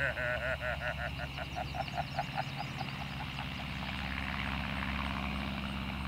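Aeronca L-3 light plane's engine droning steadily in flight, growing a little louder in the second half. Over it for the first two seconds or so runs a fast pulsing call, about five pulses a second, rising slightly in pitch.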